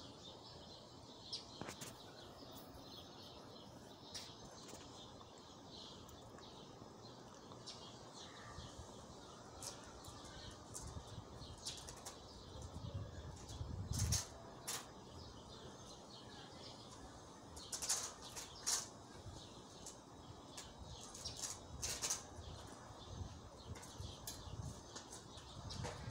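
Small birds chirping sporadically over a steady low background hiss, with a few short soft knocks and rustles, the loudest about halfway through.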